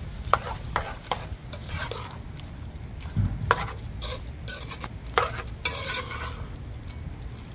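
A spoon scraping and knocking around the inside of a cooking pot as a pot of chicken back is stirred, in short irregular strokes.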